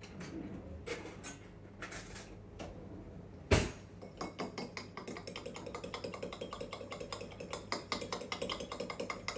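A metal spoon stirring cornstarch into lemon juice in a small drinking glass, clinking against the glass in a quick, even run of many light clinks a second from about four seconds in. Before that come a few light rustles and one sharp knock, the loudest sound.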